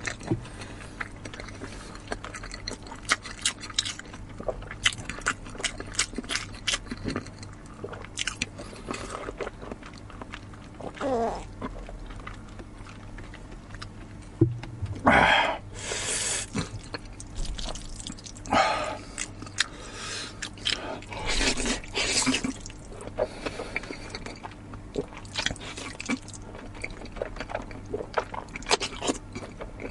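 Close-up mouth sounds of eating: steady chewing with many crisp, crunchy bites of raw zucchini. In the second half come several loud slurps of noodles, each lasting up to about a second.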